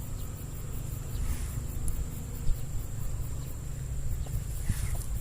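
Insects trilling with a fast even pulsing and a constant high thin whine, over a steady low rumble.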